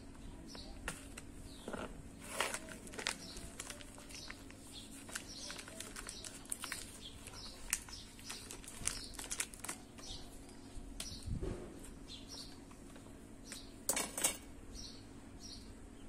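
Plastic and paper wrapping of a pack of puff pastry dough rustling and crinkling as it is opened and peeled off, loudest about two seconds in and again near the end, with small birds chirping over and over in the background.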